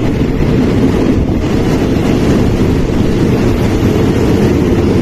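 Passenger train running along a platform, heard from its open doorway: a steady, loud rumble of wheels on rail, with wind buffeting the microphone.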